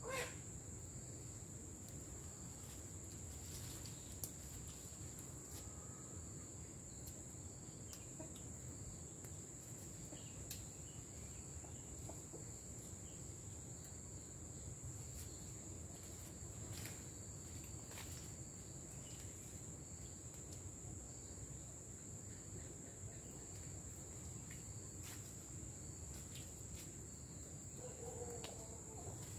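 Insects droning steadily on one high pitch, faint, over a low background hiss, with a few light clicks and rustles scattered through.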